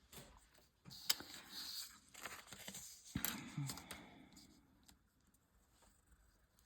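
Paper rustling and scraping with several sharp clicks, busiest in the first four seconds, then fainter scratches.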